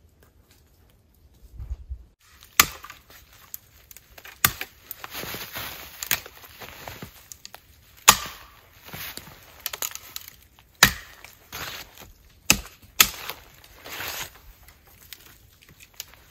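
Wood being chopped by hand: a series of sharp blows, one every one to three seconds, starting about two seconds in, with rustling and crunching between them.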